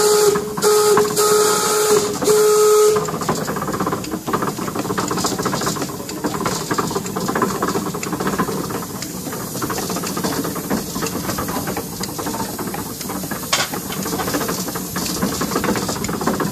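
A steam whistle blows a few short blasts in the first three seconds. After that the steam donkey engine runs with a steady hiss of steam.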